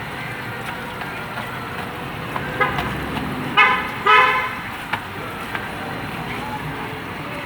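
A vehicle horn honks in street traffic: a short beep, then two louder toots about half a second apart, over a steady hum of passing traffic.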